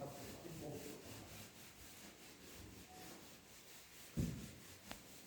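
Faint rubbing and handling noise, with a dull thump about four seconds in and a short sharp click just before the end.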